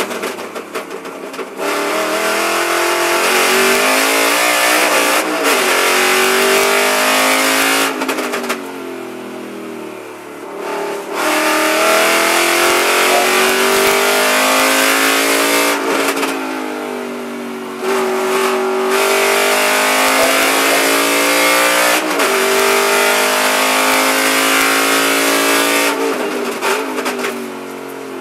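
Aston Martin Vantage V8 GT4 race car's V8 engine under hard acceleration, heard from inside the cockpit. Its pitch climbs through the gears with quick shifts, and three times it lifts off and goes quieter for a couple of seconds for braking and downshifts before pulling hard again.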